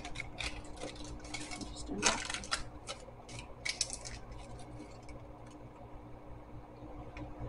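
Paper tulip muffin liner crinkling as it is peeled off a muffin: a run of short crackles over the first four seconds or so, then only a few faint clicks.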